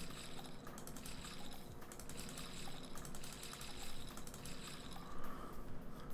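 Rapid, irregular clicking of computer keys or a mouse.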